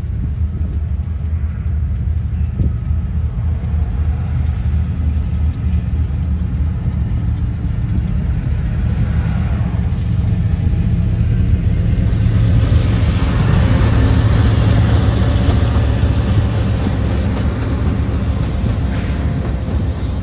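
Union Pacific GE diesel locomotives running past with a steady, heavy engine rumble. A pickup truck passing close in front adds rising tyre and road hiss in the middle, the loudest part.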